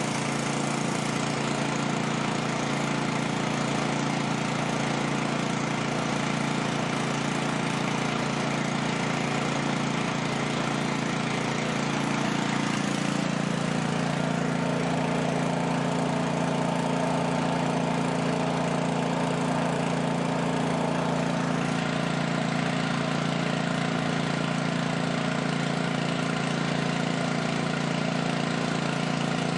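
Stationary engine driving a generator, running steadily at a constant speed; its note changes slightly about thirteen seconds in.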